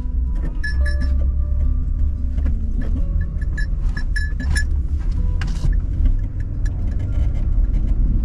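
Truck engine and drivetrain rumbling steadily in four-wheel drive while trying to climb an icy hill, heard from inside the cab. Loose things in the cab jingle and clink over the rumble.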